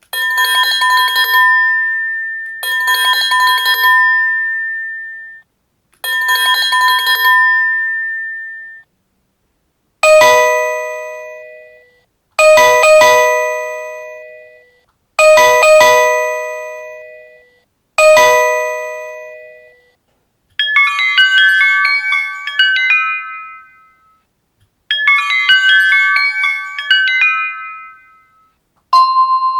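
A run of different doorbell sounds. First come three trilling electronic rings, each a few seconds long. Then four struck chime rings that fade away, two of them doubled. Then two short electronic chime melodies, with another chime starting at the very end.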